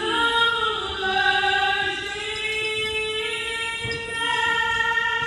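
The national anthem sung by a singer over the arena's sound system before the hockey game, slow long-held notes that change pitch only every second or so.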